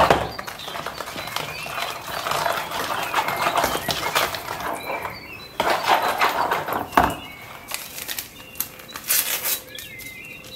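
Metal hand whisk beating a wet batter in a plastic bowl: quick clicking and scraping of the wires against the bowl's side, in uneven spells, loudest a little past the middle.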